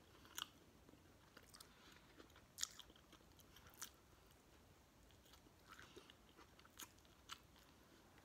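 Faint close-up chewing of a bite of cold cut sandwich, with a handful of soft, scattered wet mouth clicks and smacks.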